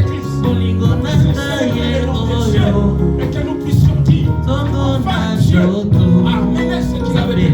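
Worship music: voices singing over steady instrumental accompaniment.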